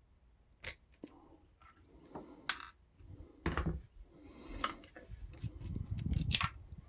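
Small metal parts of an aluminium padlock clicking and clinking as the lock is handled and taken apart, about half a dozen sharp clicks with softer handling noise between. The loudest click comes near the end and leaves a brief thin ring.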